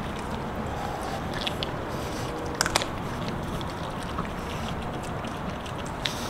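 Two French Bulldog puppies chewing and tearing at a whole raw chicken, with a few sharp crunches of bone, the loudest about two and a half seconds in, over a steady background hiss.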